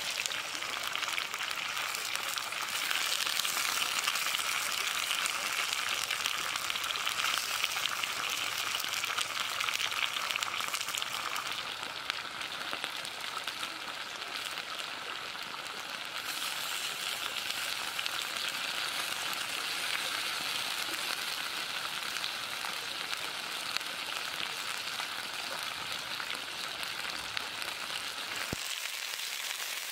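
Pork and vegetables frying on a hot griddle, a steady sizzling hiss.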